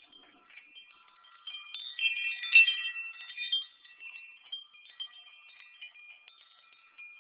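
High, clear ringing tones that overlap and change in steps, a tinkling, chime-like sound that is loudest about two to three and a half seconds in.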